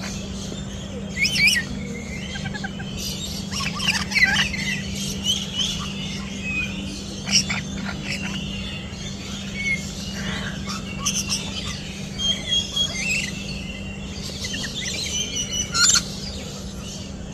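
Many small birds chirping and calling together, with short, irregular calls overlapping throughout, over a steady low hum.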